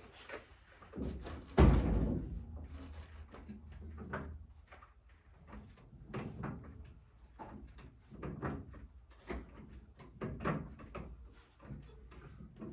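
A loud thud about a second and a half in, then irregular knocks and clanks from jacking a car body up off its frame.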